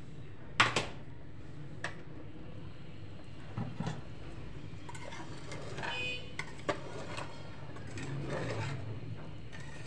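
A spoon clinking and knocking against a metal cooking pot a few times, the sharpest knock about half a second in, over a steady low hum.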